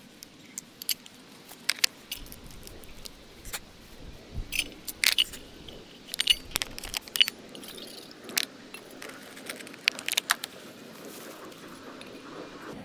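Clinks, taps and light rattles of small metal camping gear being handled and set down, a steel cup, a tin lid and a spoon among them, in irregular knocks with the sharpest around the middle and about ten seconds in.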